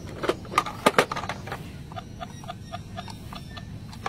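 Plastic toy ambulance being handled as its buttons are pressed, with a few clicks and knocks in the first second. After that come faint short blips, several a second.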